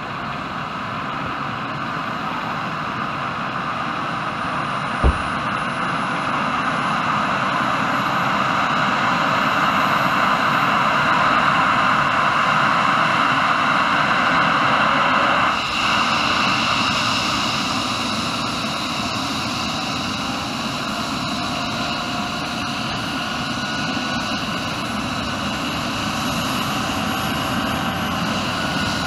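Rescue helicopter's turbine engines and main rotor running up on the ground before take-off: a steady turbine rush with a high whine that climbs slowly in pitch through the first half. A single sharp knock comes about five seconds in, and the mid-range noise drops off abruptly about halfway through.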